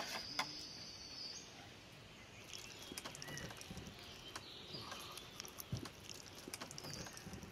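Scattered clicks and light scrapes of a knife and hands skinning a large sturgeon on a metal tray, the skin being cut and peeled back from the flesh; the sharpest clicks come right at the start and about half a second in. Small birds chirp in the background.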